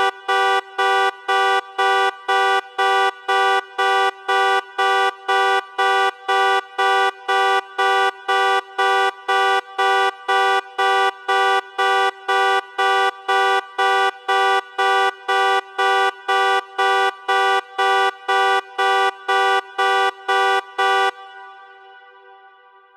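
Car alarm sounding through the horn of a 2005 Infiniti QX56, beeping in a steady pulse about twice a second. It stops about 21 seconds in, and the last beep rings off in a long echo, like a large parking garage.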